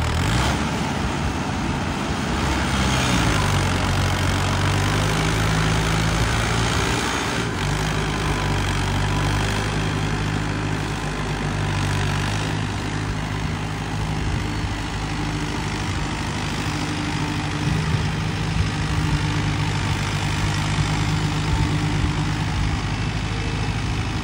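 Modified Mahindra Arjun 605 DI MS tractor's diesel engine running under load while it pulls a spring-tine cultivator through soil. Its note holds fairly steady, rising a little about two seconds in and shifting again a few times.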